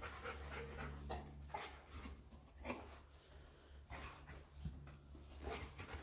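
A dog panting and sniffing in short, irregular breaths as it searches by scent, over a steady low hum.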